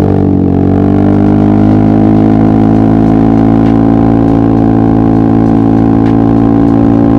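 Yamaha XMAX maxi-scooter's single-cylinder engine running loud at a steady, even pitch while under way.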